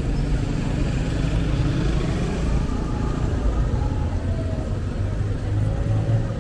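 Street traffic: motor vehicles running, a steady low rumble.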